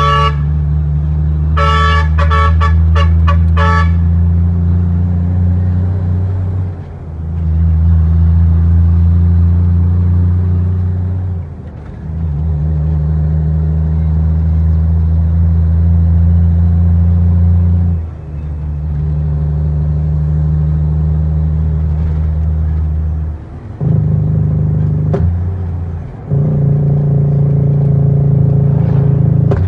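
Freightliner FLD120 Classic's diesel engine droning under load inside the cab, dropping off briefly every five or six seconds as the gears are shifted. Near the start a horn gives a quick string of short toots.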